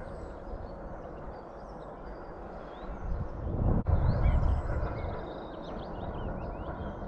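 Small birds chirping over a low rumble that swells about three seconds in and eases off after five.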